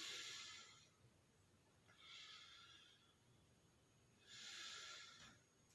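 Slow, deep human breathing, faint: three drawn-out breaths about two seconds apart, each about a second long. These are the calm long breaths taken to bring the breath back to normal after rounds of rapid forceful exhalation.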